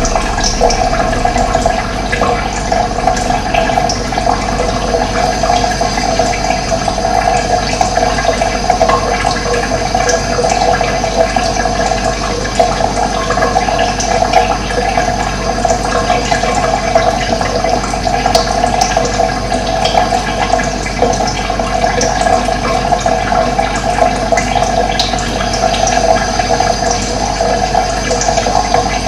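Running water flowing steadily, a continuous loud rushing.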